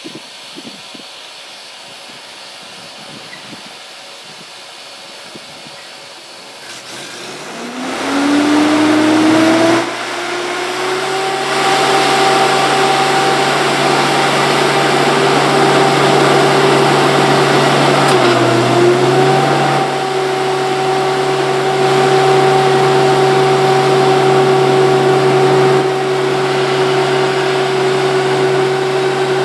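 A start cart's Ford flathead six starts about eight seconds in, rising in pitch as it catches, then runs steadily to warm up, with one brief sag in speed partway through. Before it starts there is only a quieter steady hum.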